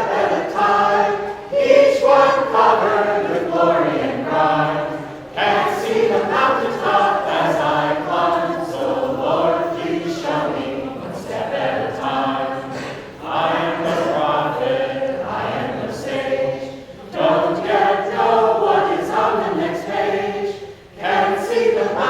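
A small group of voices singing a song together in harmony, in held phrases with brief breaks between them.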